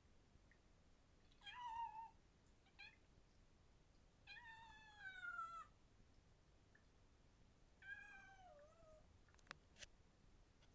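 Kitten meowing several times in high-pitched calls, the longest drawn out for over a second and falling in pitch. Two sharp clicks near the end.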